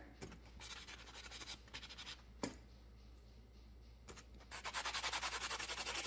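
A 180-grit sanding block rubbed back and forth over 18-gauge wire, buffing out small nicks: faint light strokes, a single sharp click about two and a half seconds in, then a run of quick even strokes, several a second, near the end.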